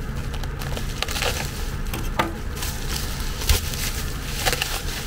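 Plastic bubble wrap crinkling and crackling as it is cut open with a knife and pulled apart by hand, with a few sharp cracks, the loudest about three and a half seconds in.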